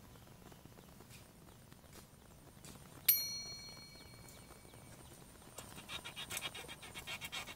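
A single sharp metallic ding about three seconds in that rings on and fades over a second or so. From a little past five seconds in, a fishing reel is wound in with a fast, even clicking, bringing in a hooked fish.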